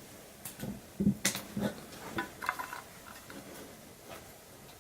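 A few small, sharp clicks and snips of scissors cutting the gold bands off a bundle of clip-in hair extensions, with light handling noise between them.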